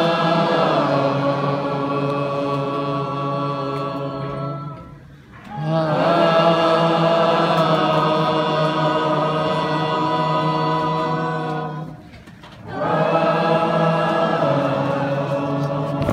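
Concert audience singing along in unison: three long held phrases, each with a short pause between.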